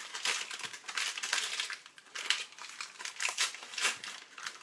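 Crinkling of a paper packet of powdered sugar as it is handled and opened: a quick, irregular run of sharp crackles.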